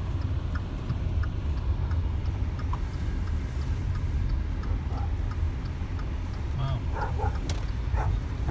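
Car driving slowly, heard from inside the cabin: a steady low rumble of engine and road noise. Near the end come a few short, high-pitched sounds.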